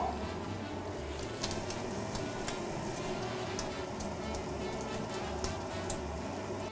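Bacon frying in a pan: a steady sizzle with scattered small crackles and pops.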